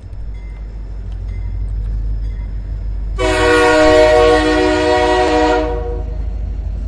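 Train horn sounding one steady blast of about two and a half seconds, starting about three seconds in and fading out, over a steady low rumble.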